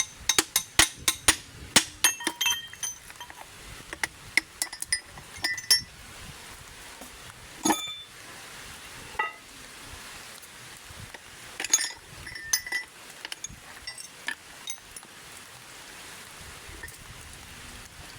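Metal parts and tools clinking and tapping with short, high ringing, in irregular clusters, as a differential is taken apart.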